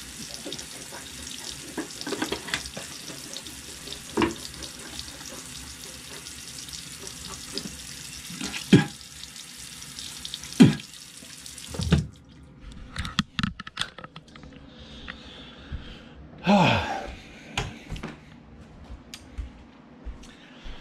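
Bathroom sink tap running steadily, with a few louder splashes or knocks, then shut off suddenly about twelve seconds in. After that come scattered clicks and knocks and a short sound falling in pitch.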